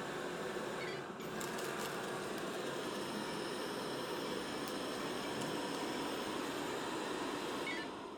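Bagotte BG800 robot vacuum cleaner running: a steady whir of its suction motor and brushes, dying away near the end.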